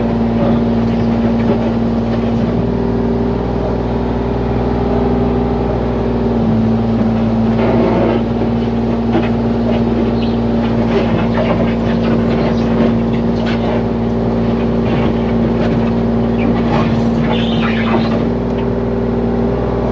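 Heavy-equipment diesel engine running steadily, with scattered clanks and scraping from about seven seconds in.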